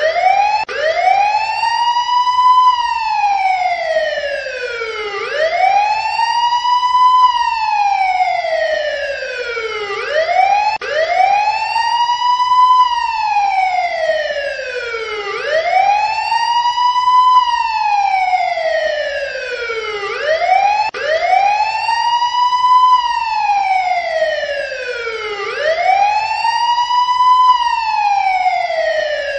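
Emergency-vehicle siren sounding a slow wail. Each cycle rises quickly to a high note and then falls more slowly, and the cycle repeats about every five seconds.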